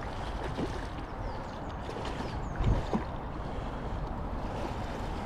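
Outdoor wind rumbling on the microphone, with faint high chirps and a low thump about two and a half seconds in.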